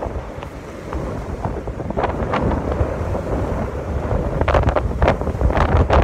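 Wind buffeting a phone's microphone: a steady low rumble with sharp crackles, more of them in the last couple of seconds.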